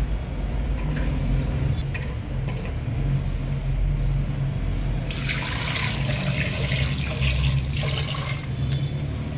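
A stream of water pouring into a pressure cooker pot over eggs and potato halves, from about five seconds in until it stops near the end. A steady low hum runs underneath.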